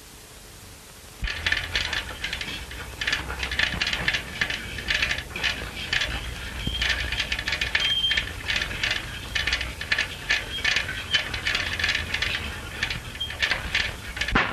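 Continuous rapid metallic rattling and ratcheting of a fire-escape ladder's release mechanism as the ladder is let down. It starts suddenly about a second in and cuts off abruptly at the very end.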